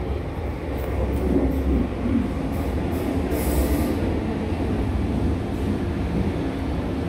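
Athens Metro Line 1 8th-generation electric train pulling into the platform: a steady, heavy low rumble of wheels on rails, with a brief high-pitched squeal about three and a half seconds in.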